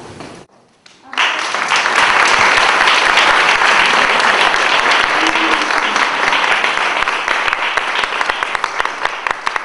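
Audience applauding: a full round of hand-clapping that starts about a second in after a brief hush and thins to scattered separate claps near the end.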